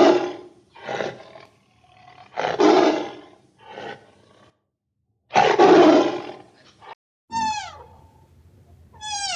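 A large animal giving several rough roars, each under about a second long. About seven seconds in they give way to short, clear, falling whining cries.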